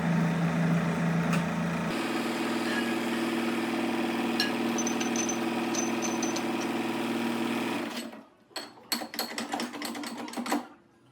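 Hydraulic wheel-straightening ram's pump running with a steady hum, its note stepping up about two seconds in, then cutting off after about eight seconds, followed by a few irregular knocks and clicks.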